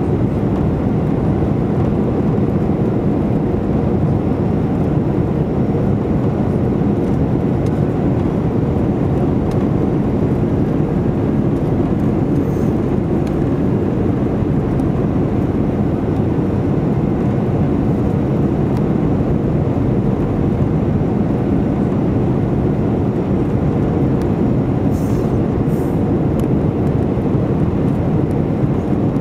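Cabin noise of an Airbus A319 on approach, heard from a seat over the wing: a loud, steady rush of engine and airflow with a faint, even hum.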